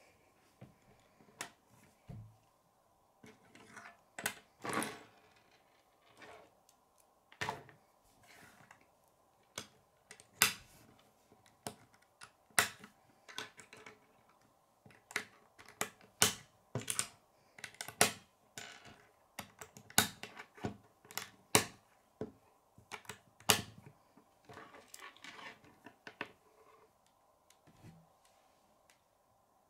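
Plastic K'nex pieces being handled and snapped together, giving a run of sharp, irregular clicks and light knocks against a wooden tabletop.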